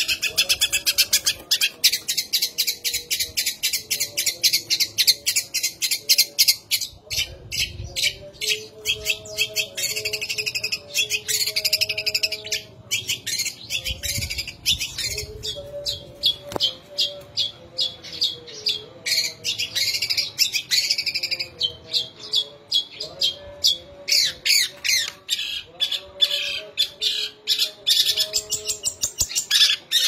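Long-tailed shrike (cendet) singing a long, unbroken run of rapid, sharp chirps, several a second, with stretches of denser warbling. Its song is filled with mimicked Eurasian tree sparrow and kingfisher calls.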